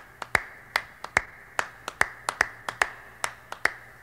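Sharp claps in a steady rhythm, about two and a half a second with softer claps between, over a faint low hum.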